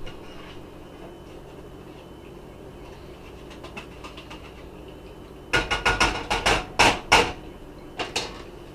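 Metal utensil clattering and scraping in a saucepan as chili is dished out: a quick run of sharp knocks about five and a half seconds in, then two more near the end.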